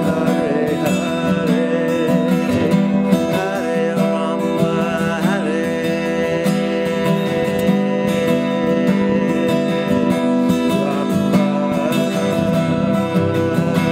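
Steel-string acoustic guitar strummed continuously, its chords ringing on steadily.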